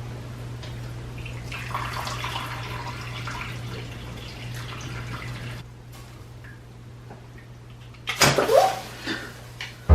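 Water splashing and trickling over a steady low hum, with a short, louder splash about eight seconds in.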